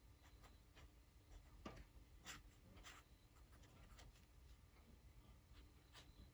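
Faint pen strokes on paper, short separate strokes with two stronger ones a little over two and three seconds in.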